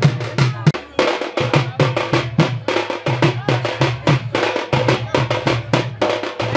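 Fast festival drumming: a dense, steady run of drum strokes with deep low thuds under them, breaking off briefly a little under a second in before picking up again.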